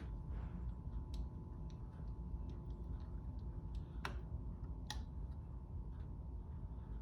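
Scattered light clicks and taps, the two sharpest about four and five seconds in, over a low steady hum.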